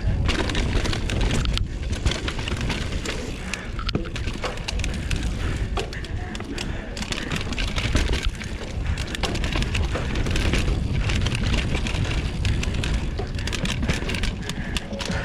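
Mountain bike ridden fast down dirt singletrack: tyres rumbling over the ground, with steady rattling and clicking of the chain and frame over rough terrain, and wind buffeting the microphone.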